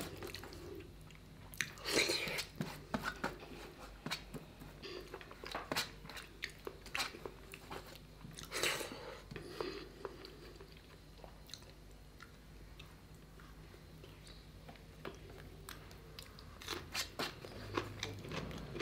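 Close-up eating sounds of rice and curry eaten by hand: chewing with wet mouth clicks and smacks, and fingers gathering food from a steel plate. Louder bursts come about 2 seconds and 9 seconds in, with a quieter stretch after the middle.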